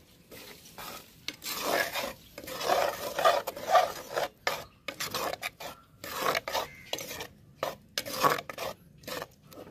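A metal spoon stirring curry gravy in an unglazed clay pot, scraping the pot's sides and bottom in a run of irregular, rasping strokes.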